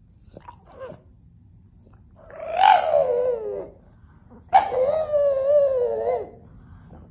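French bulldog howling twice: a first howl about two seconds in that slides down in pitch, then a longer wavering howl from about four and a half seconds that drops at its end.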